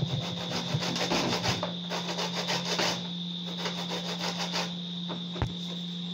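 Fresh corn cob rasped up and down a metal hand grater in quick, repeated scraping strokes. The strokes pause briefly about three seconds in and stop before five seconds, followed by a single knock.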